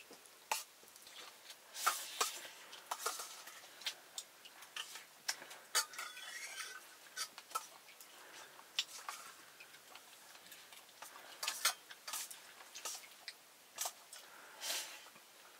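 Cooking utensils and dishes clinking and tapping at irregular intervals, with a few short scrapes like stirring in a pot.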